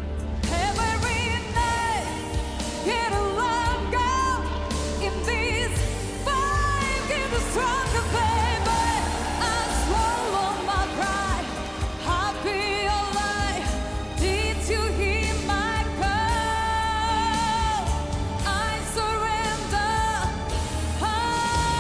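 A woman singing with band accompaniment, holding long notes with a wide vibrato over a steady bass line; near the end she settles on a long, steady held note.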